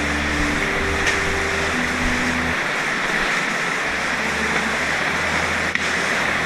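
Steady rush of flowing river water, an even, continuous hiss.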